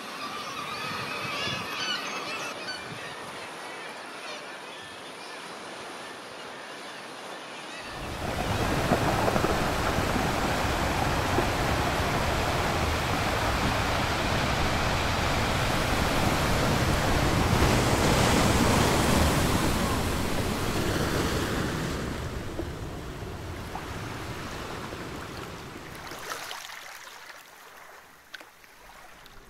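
Seabirds calling faintly from the cliffs. About eight seconds in, a sudden steady rush of sea surf with wind on the microphone sets in, fading away a few seconds before the end.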